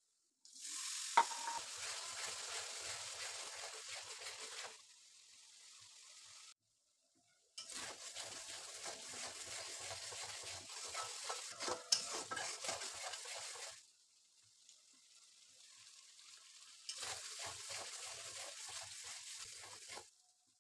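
Onion and spice masala frying in oil in a metal kadai, stirred and scraped with a metal spatula: scraping and sizzling in three stretches of a few seconds each, with a faint sizzle between them. Two sharp knocks of the spatula on the pan, one about a second in and one near the middle.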